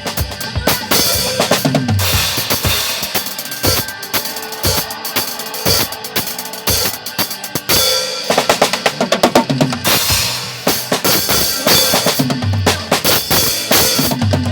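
Drum kit played along to a recorded worship song: bass drum and snare hits with cymbal wash over the song's backing track.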